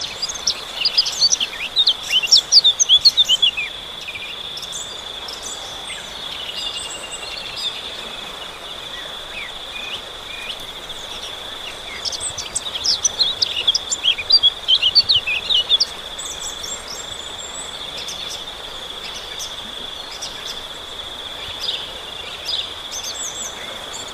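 A steady high-pitched insect drone with quick bird chirps over it, in two busy runs: one near the start and one around the middle.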